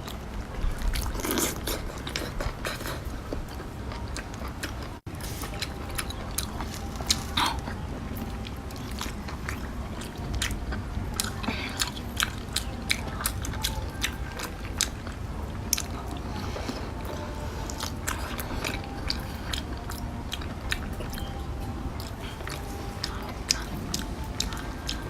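Close-miked eating: biting and chewing with many small sharp crunches and cracks.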